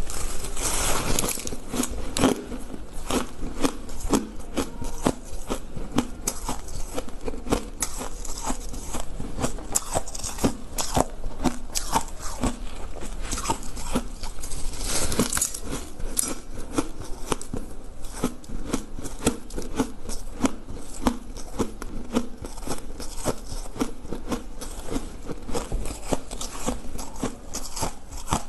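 Ice being bitten off a block and chewed, a dense run of sharp crunches one after another.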